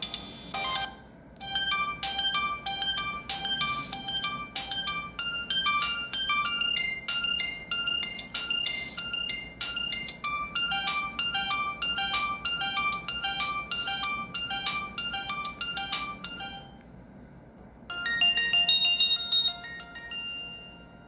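Samsung GT-E1151 mobile phone playing a polyphonic ringtone: a quick melody of short electronic notes that stops about sixteen seconds in. After a short pause a second, shorter tone starts, ending on a held high note.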